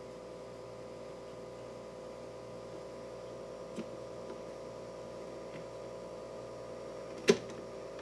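Steady mains hum and buzz from the speaker of a late-1950s Admiral 329 record player's vacuum-tube amplifier as it warms up, a buzz the owner hopes replacing the old capacitors will cure. A faint click comes about four seconds in and a sharp, much louder click about seven seconds in.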